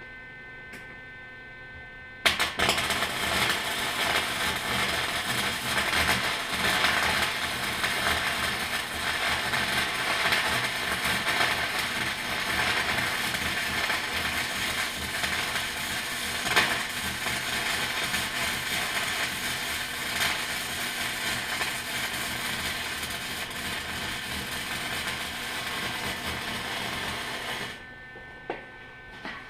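Lincoln 180 MIG welder arc crackling steadily as one long weld bead is run for about 25 seconds, starting suddenly a couple of seconds in and cutting off near the end. A faint steady hum is heard before and after the arc.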